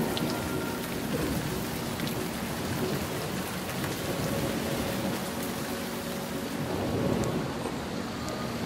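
Heavy rain drumming on the roof and windshield of a moving car, heard from inside the cabin: a steady dense hiss with scattered sharp drop impacts.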